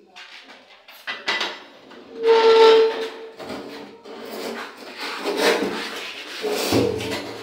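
Acrylic bathtub being shifted into position on a tiled floor: knocks, rubbing and scraping, with a short loud squeal about two seconds in.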